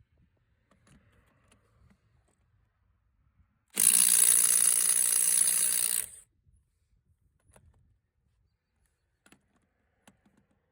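DeWalt Atomic DCF923 compact 3/8-inch cordless impact wrench hammering for about two and a half seconds, a little under four seconds in, breaking a lug nut loose. Faint clicks and small knocks of the socket and nut come before and after.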